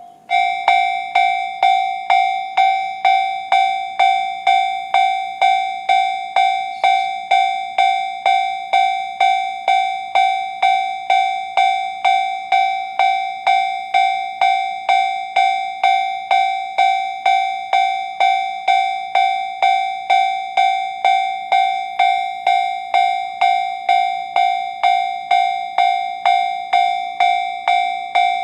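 Japanese railway level-crossing alarm sounding the JR standard electronic bell tone, warning that a train is approaching. A single bell-like strike repeats evenly about twice a second, each one dying away quickly. It comes in loud just after the start.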